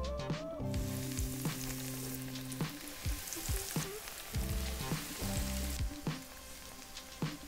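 Food sizzling steadily as it deep-fries in hot oil, with the hiss thinning near the end.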